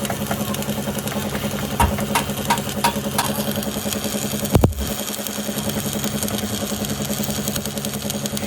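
An engine idling steadily. Over it come a few sharp light knocks about two to three seconds in, then one louder thump near the middle.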